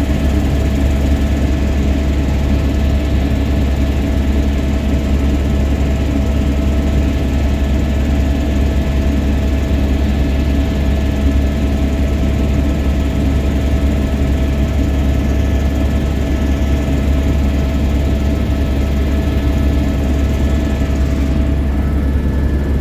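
Steady drone of an aircraft in flight, a constant low rumble with a few steady engine or rotor tones over it. Near the end the sound turns duller as the higher tones fade.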